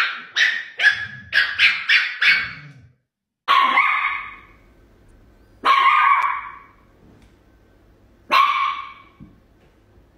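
Chihuahua barking: a quick run of about seven sharp, high yaps over the first three seconds, then three longer single barks a couple of seconds apart.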